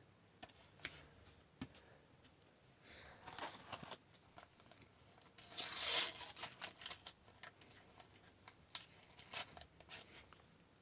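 Rustling that builds to a louder tear of a sticker pack's wrapper about six seconds in, followed by scattered light clicks and taps as the stickers are handled.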